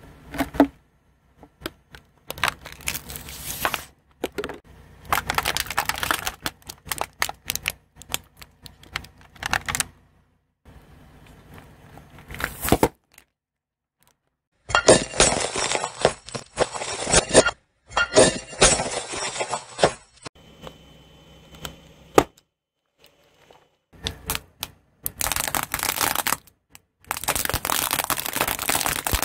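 Household objects crushed under a car tyre on asphalt: plastic, foil packets and cotton balls crackling, crunching and snapping in a string of separate bursts, several of which cut off suddenly.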